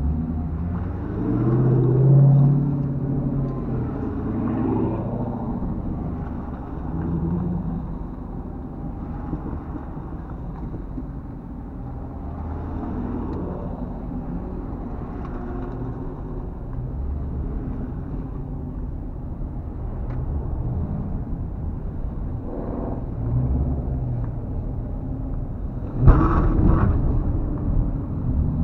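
Dodge muscle-car engines idling and creeping along in a slow line, heard from inside a car's cabin, with a low rumble that rises in revs now and then. About 26 seconds in, an engine revs suddenly and loudly.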